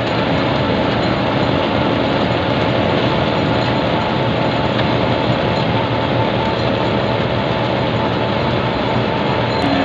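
Wirtgen cold milling machine at work, its engine running and its cutting drum grinding up an asphalt surface: a loud, steady machine din with a constant hum through it.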